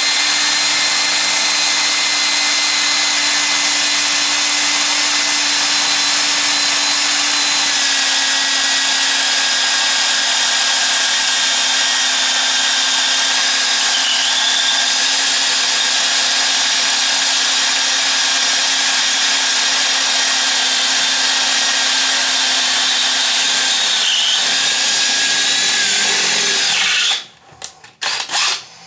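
Electric power tool running steadily at a constant speed with a steady whine, then stopping near the end, followed by a few short bursts.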